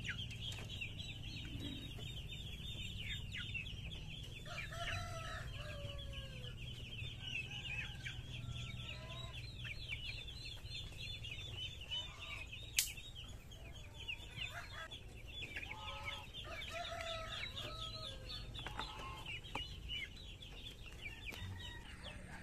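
Many young chicks peeping continuously in quick high chirps, with adult chickens clucking now and then and a single sharp click about thirteen seconds in.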